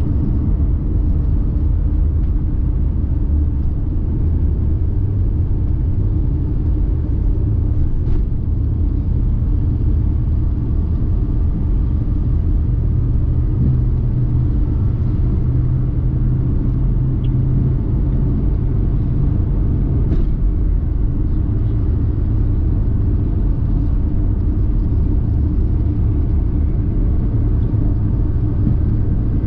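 Steady low rumble of a vehicle on the road, engine and tyre noise. A steadier low hum stands out above it for several seconds in the middle.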